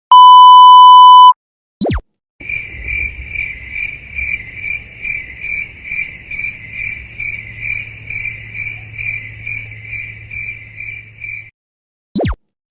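A loud steady censor bleep lasts about a second, followed by a looped cricket-chirping sound effect, the classic 'awkward silence' crickets. The crickets pulse two to three chirps a second for about nine seconds. A quick downward swoosh sets each effect apart.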